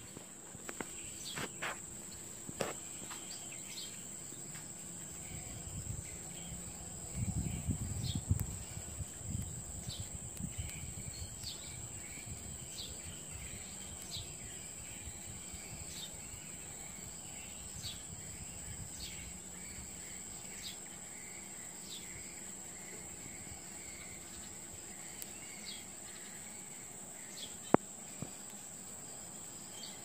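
Steady high-pitched insect trill of crickets or cicadas, with short, falling high chirps repeating every one to two seconds. A low rumble comes about seven seconds in, and a single sharp click near the end.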